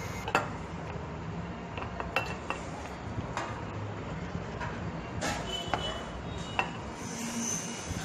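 Light metallic clicks and clinks of a brass can-tap valve and charging-hose fitting being handled and screwed onto a can of R134a refrigerant, about a dozen scattered taps over a steady low hum.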